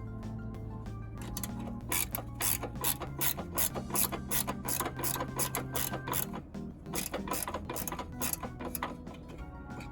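Ratchet wrench clicking in quick runs of strokes as a nut is worked during a car battery change, over quiet background music.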